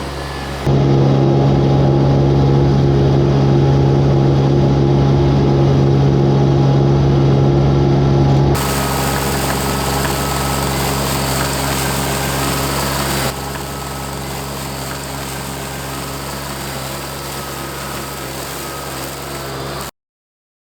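Mini skid steer's engine running steadily while driving a flail mower, in several spliced takes that change abruptly in loudness and tone; the loudest take runs from about a second in to about eight seconds, and the sound cuts off suddenly near the end.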